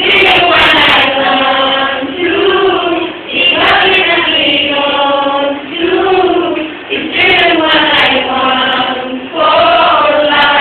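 A group of students singing together in a classroom, mixed boys' and girls' voices, in sung phrases of one to two seconds with short breaks between them.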